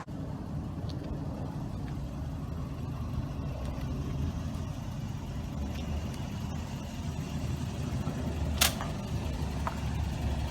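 Car driving slowly, a steady low rumble of engine and road noise, with one sharp click about eight and a half seconds in.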